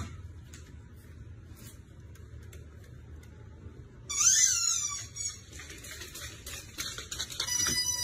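A pet animal calls out: a loud whining cry that bends up and down in pitch, lasting about a second, about four seconds in, and then a steady high-pitched call near the end.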